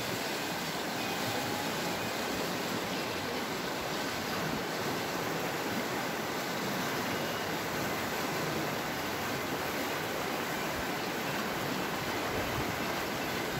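Fast-flowing mountain river rushing over stones and small rapids: a steady, even rush of water.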